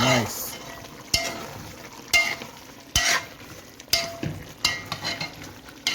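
Brown stew chicken sizzling in a pot while it is stirred, the utensil scraping and knocking against the pot about once a second.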